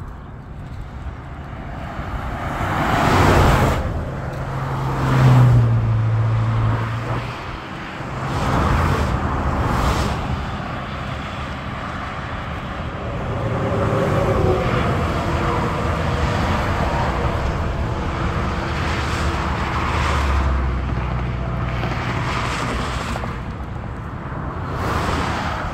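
Highway traffic: cars and trucks pass at speed one after another, each one swelling up and fading away over a steady road noise. The loudest pass comes about five seconds in, with a low engine hum.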